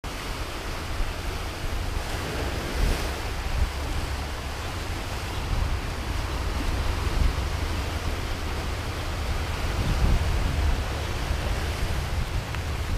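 Surf washing onto a rocky shore, with wind buffeting the microphone as a steady, uneven low rumble underneath.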